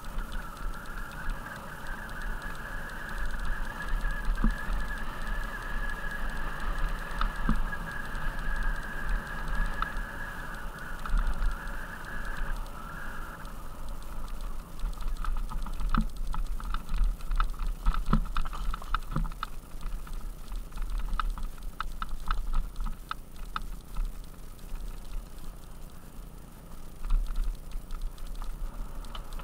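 Mountain bike rolling down a stony dirt trail: tyres crunching over loose stones and the bike rattling with irregular sharp clicks, over a low wind rumble. A steady buzz runs for roughly the first twelve seconds, then gives way to denser clicking and rattling.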